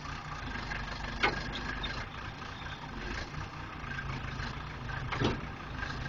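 Case 480C backhoe's engine running steadily while its front loader holds up a heavy dozer blade, a load a little above the machine's recommended capacity. Two brief sharper sounds cut in, about a second in and near the end.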